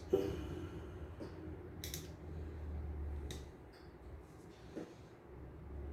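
Small screwdriver working the tiny screws of a cassette deck's tape head assembly: scraping and a few short clicks over a low steady hum.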